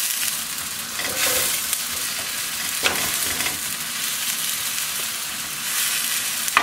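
Chopped onion and garlic sizzling in olive oil in a nonstick wok, stirred with a wooden spatula; the steady hiss swells in waves with the stirring strokes.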